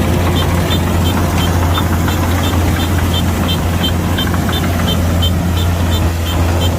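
Kubota DC105X combine harvester running steadily, a loud low engine hum under broad mechanical noise. Over it, short high beeps repeat evenly about three times a second.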